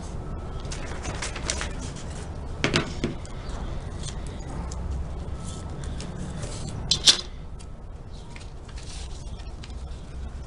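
Hand crafting noises: double-sided tape pulled from its roll and cut with scissors, with paper being handled. There are a few short sharp clicks, two close together about three seconds in and a sharper one about seven seconds in.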